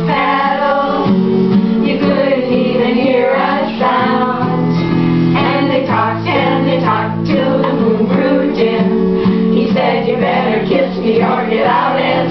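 A group of women singing a camp song together, accompanied by a guitar.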